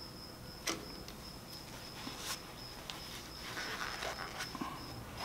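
Quiet hand work at a bicycle-style hydraulic brake lever: a few faint clicks and a soft rustle as gloved hands wipe the brake line fitting with a paper shop towel, over a steady faint high-pitched whine.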